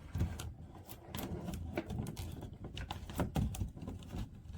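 Irregular plastic clicks and taps from handling a small hard-wired propane gas alarm while lining it up with the clips and holes of its mounting plate.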